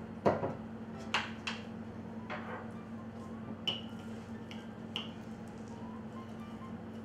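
A plastic lid twisted off a jar of marshmallow Fluff with a few clicks and knocks, the loudest about a quarter second in. Then a knife goes into the jar to scoop, giving two short ringing clinks.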